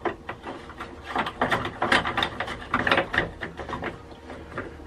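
Irregular scraping and clicking as the clear plastic bowl and its stainless steel heat shield are pushed up and turned by hand onto a Racor 500-series diesel fuel filter.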